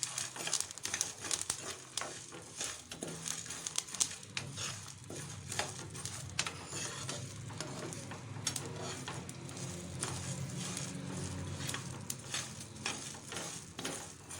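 A spoon stirring garlic, dals and spices frying in a pan with a little oil: irregular scraping clicks of the spoon against the pan over a soft sizzle, cooking off the raw garlic smell.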